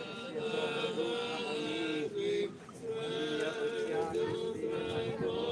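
Male voice chanting a church hymn in long held notes, with a brief pause between phrases about halfway through, during the Easter blessing rite.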